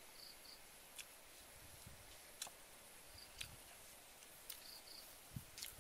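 Faint chewing: scattered soft mouth clicks and smacks of a person eating, with a few faint paired high chirps in the background.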